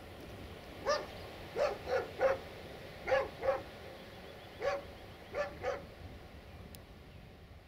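A dog barking: about nine short barks in bursts of one to three, over a faint steady background hiss.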